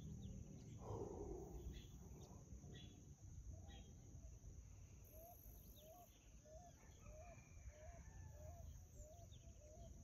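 Quiet outdoor stillness with one soft breath about a second in. Through the second half a bird repeats a short call note about twice a second.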